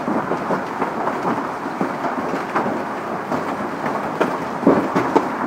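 Heavy hail falling: hailstones clattering densely on pavement, leaves and a parked car, with a few louder strikes near the end.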